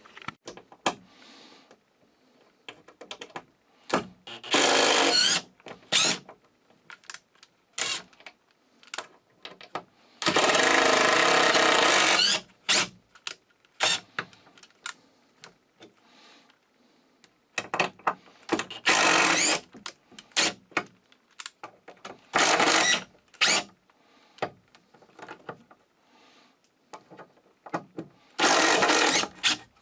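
Cordless impact driver or drill run in five short bursts of a second or two, working screws in the bunk bed boards, with scattered clicks and knocks of tool and wood handling between.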